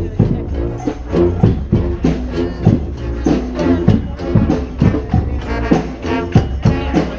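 Brass marching band playing, the horns sounding chords over a steady drum beat.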